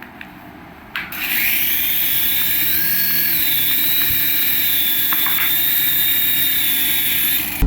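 A small electric toy motor starts about a second in and runs with a steady high whine, its pitch shifting slightly, then cuts off near the end.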